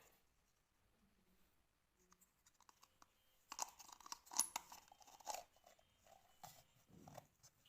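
Close handling noises: about three and a half seconds in, a two-second run of scratching, crackling and sharp clicks, as of small hard objects being handled and set down, then a few more clicks and scrapes near the end.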